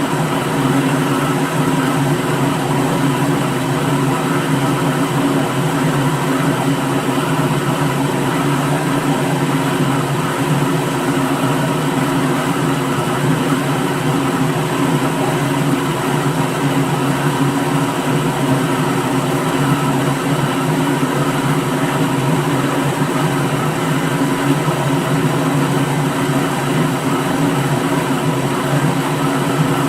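Electric kitchen blender motor running steadily at one constant speed: a continuous hum with a hiss over it, unchanging throughout.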